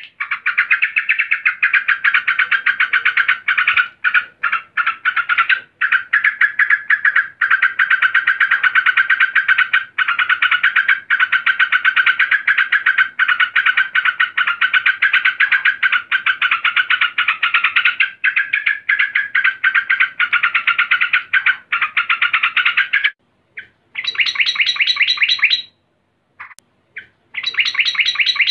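Female yellow-vented bulbul (trucukan) giving a long, rapid chattering call, an unbroken run of quick repeated notes; it breaks off near the end and comes back in two short bursts. This is the agitated female call used to draw male bulbuls into song.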